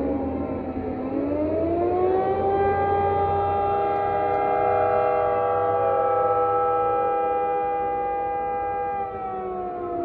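Outdoor civil-defense warning siren sounding in a test. Its pitch dips about a second in, climbs back up, holds a steady tone for several seconds, and starts to fall again near the end.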